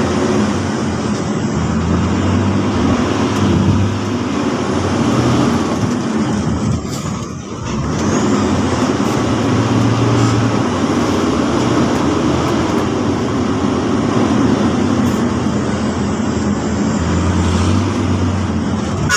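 Dump truck engine running steadily as the truck descends a downhill road, with a brief drop in level about seven seconds in.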